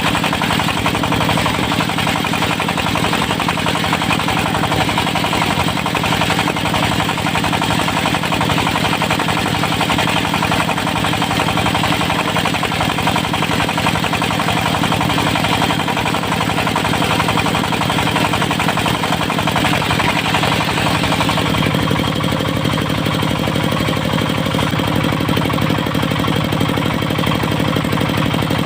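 Diesel engine driving a portable circular-saw sawmill, running steadily under load as the blade rips a teak log into thin boards. About three-quarters of the way through the sound shifts, with less of the higher sawing noise and more of the low engine note.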